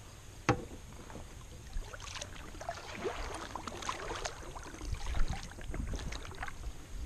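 Kayak paddle strokes: the blade dipping and pulling through calm pond water, with splashes and water dripping off the paddle, and a sharp click about half a second in.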